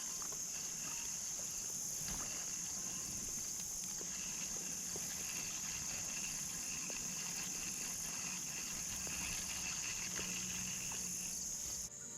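Evening insect chorus of crickets and katydids: a steady high-pitched trill, with a lower pulsing chirp that comes and goes, and a few faint clicks. It cuts off suddenly near the end.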